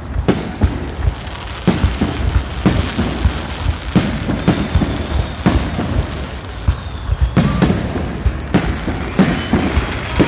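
Fireworks display: shells bursting with sharp bangs, roughly one a second, over continuous crackling.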